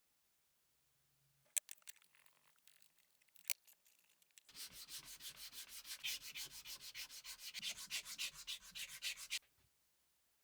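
Rapid back-and-forth abrasive rubbing by hand, about six even strokes a second for some five seconds, as in hand sanding during a tool restoration. Before it, a few sharp knocks and clicks of the work being handled, the first of them the loudest sound.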